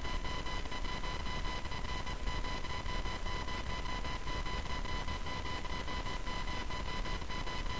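Steady hiss with a constant high electrical whine and its overtones over a low hum, unchanging throughout: background noise of the recording.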